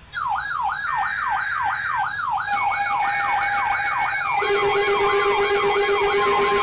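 Electronic yelp-style siren, its pitch sweeping up and down about three times a second, with steady electronic tones joining in about two and a half seconds in and again near four and a half seconds in.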